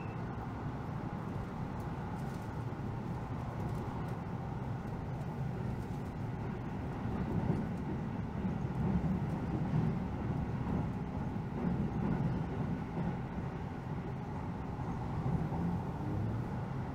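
Keihan electric train running at speed, heard from inside the passenger car: a steady rumble of wheels on rail that grows a little louder and rougher about halfway through.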